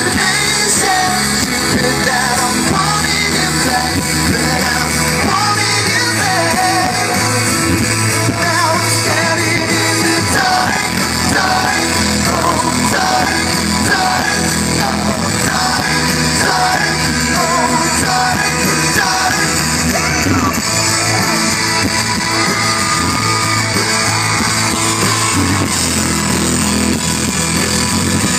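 Live pop-rock band playing a song, loud and continuous, with singing and crowd yelling over it.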